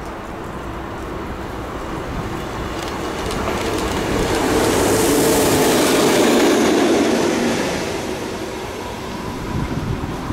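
Three coupled locomotives (Railexperts electric 9903, yellow NS 2400-class diesel 2454 and a green electric locomotive) running through a station without carriages. Their wheels and running gear swell as they approach, are loudest about five to seven seconds in as they pass, then fade away.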